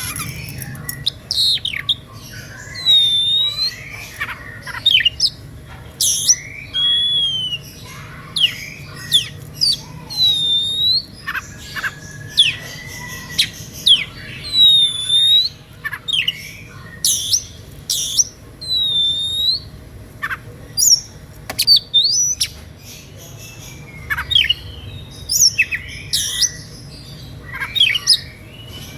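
Oriental magpie-robin (kacer) singing a fast, varied, whistled song: repeated dipping whistles, sharp sweeping notes and short chips follow each other with hardly a break. This is the fierce, agitated song kept to provoke other magpie-robins into singing.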